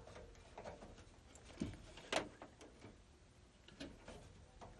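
A handful of faint clicks and light taps as a new blower-motor run capacitor is handled and slid into its mounting among the furnace wiring, the clearest about two seconds in.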